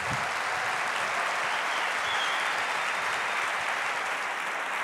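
Large audience applauding steadily after a presentation, an even wash of many hands clapping in a big hall.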